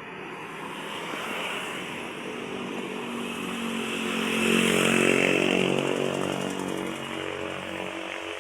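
A motor vehicle's engine passing close by on the road, getting louder to a peak about five seconds in and then fading away.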